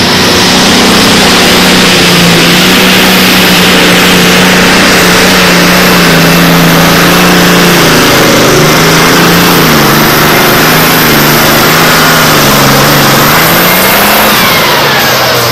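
Super stock pulling tractor's turbocharged diesel engine running flat out under heavy load while dragging a weight-transfer sled. The engine note holds steady for about the first half, then wavers and sinks toward the end as the load builds.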